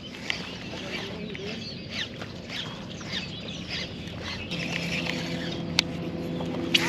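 Birds chirping: a run of short, quickly falling chirps, several a second. A low steady hum comes in partway through, and there are two sharp clicks near the end.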